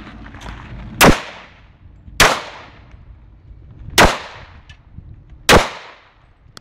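Four shots from a semi-automatic pistol, fired at uneven intervals of one to two seconds, each a sharp crack with a brief tail.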